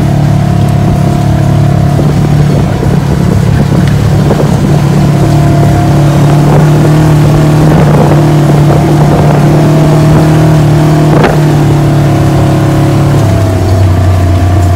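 Polaris RZR side-by-side's engine running steadily under way, with a single knock about eleven seconds in. Near the end the engine note drops lower.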